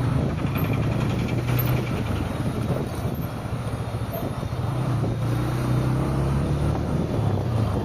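Car driving in city traffic: steady engine hum and road noise.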